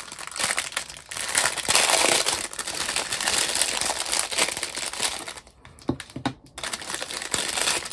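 Packaging crinkling and rustling as a small kit is unwrapped by hand. The crinkling is dense for about five seconds, then thins out to a few lighter crinkles and clicks near the end.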